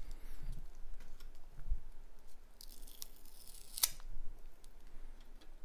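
Tape on soft plastic coin flips being cut and the flips pulled open: scattered clicks, crinkles and short scratchy strokes, the sharpest about four seconds in.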